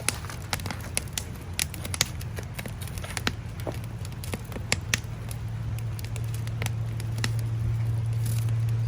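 Fire crackling with scattered sharp pops, over a low steady hum that grows louder toward the end and cuts off.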